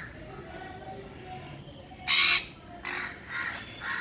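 Sun conures calling: a quieter first half, then one loud, harsh screech about two seconds in, followed by three shorter squawks about half a second apart.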